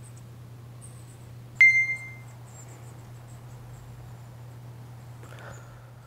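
A single short bright ding about one and a half seconds in, a click followed by a pitched ring that dies away within about half a second. Under it runs a steady low hum, with faint high chirps.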